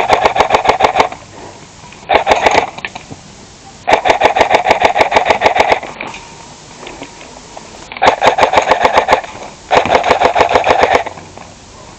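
Paintball marker firing rapid bursts, about twelve shots a second, five strings of fire, the longest about two seconds.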